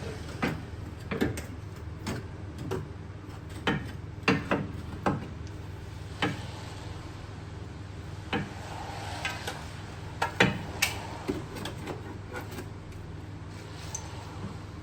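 Tools and metal suspension parts knocking and clinking in irregular sharp strikes, about fifteen of them, over a steady low hum.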